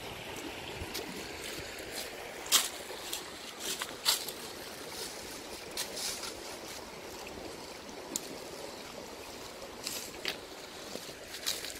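Steady rushing of a shallow rocky stream, with scattered sharp crackles of dry leaves and twigs being handled and stepped on.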